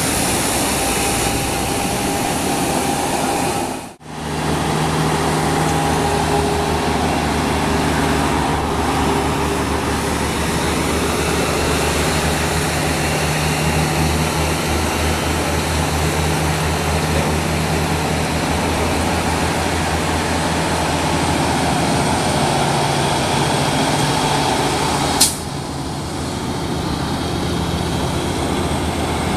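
Diesel tractor-trailer engines climbing a mountain grade: a steady low engine drone, with a brief dropout about four seconds in and a short sharp click near the end.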